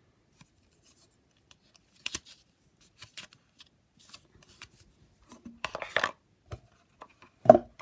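Paper booklet and cardboard packaging being handled: scattered soft rustles and small clicks, busier about two-thirds of the way through, with one louder knock near the end.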